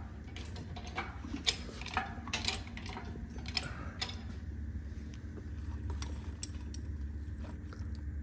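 Light metallic clinks and rattles of tools and parts being handled in an engine bay, many in the first four seconds and fewer after, over a steady low hum.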